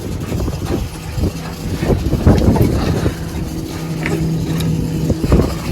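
A fishing boat's engine running steadily with a low hum, while irregular knocks and thumps sound throughout.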